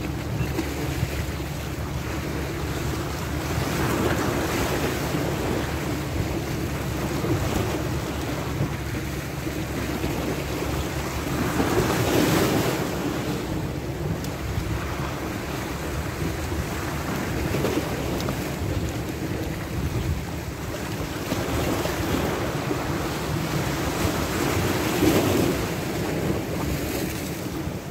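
Sea waves washing and breaking against shoreline rocks, with wind buffeting the microphone. The surf swells louder a few times as waves break.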